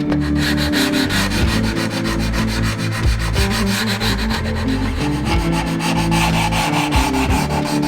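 Wood being sanded by hand with quick, even back-and-forth strokes, several a second.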